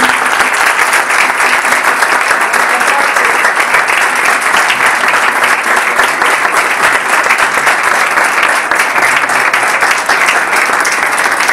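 Audience of a few dozen people applauding, steady and loud, with dense overlapping hand claps throughout.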